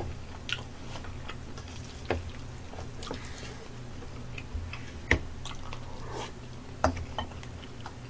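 Chopsticks clicking against a pan and dishes while eating: a few sharp clicks spread a second or two apart, the loudest about five seconds in, with quiet chewing and a low steady hum beneath.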